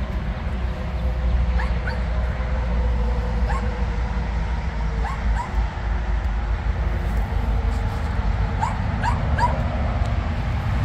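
Small dog whimpering in short, high, rising yips, scattered through and three in quick succession near the end, over a steady low rumble.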